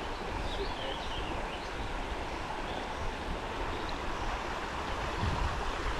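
Small trout stream running, a steady rush of water, with a few faint high chirps in the first couple of seconds.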